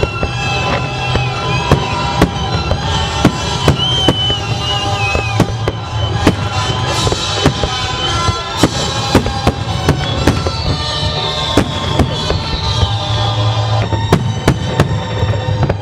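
Fireworks going off in frequent sharp, irregular bangs over loud music accompanying a pyromusical display.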